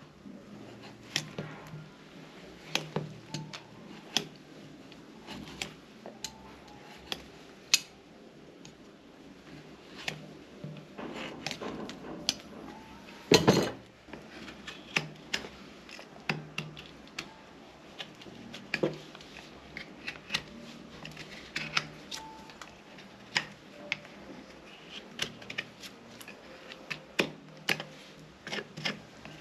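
Hoof nippers cutting a horse's hoof wall: sharp, crisp snips at irregular intervals, sometimes several a second, with one louder, longer crunch about halfway through.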